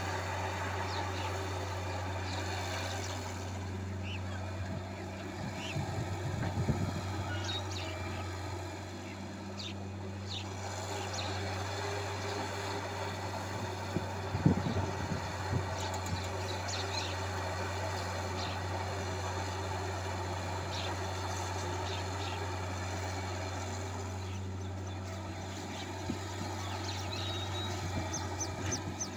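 Wheeled excavator's diesel engine running with a steady low drone while it digs and loads sand. A few loud knocks come about 7 and 15 seconds in.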